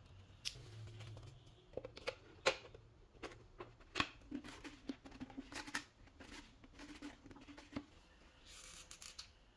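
Irregular sharp clicks and crackles of a clear plastic bottle being handled and worked by hand, with a faint low hum from about four to eight seconds in.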